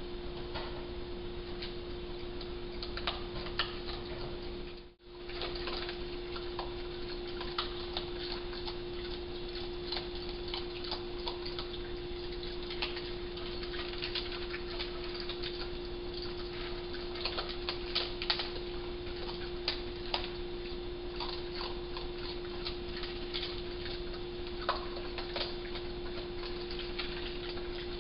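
Raccoons crunching dry cat kibble from a bowl, a scatter of irregular small clicks and ticks over a steady hum and hiss. The sound cuts out briefly about five seconds in.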